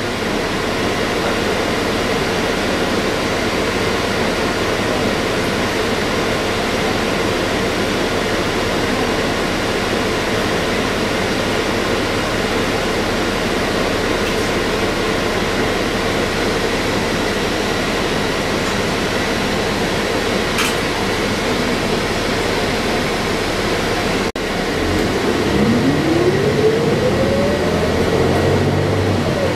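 Cabin noise inside a 2012 New Flyer XD40 diesel transit bus: a steady idling hum and ventilation noise. About 25 seconds in the bus pulls away, and the drivetrain whine rises in pitch as it accelerates, dropping back near the end as it shifts up.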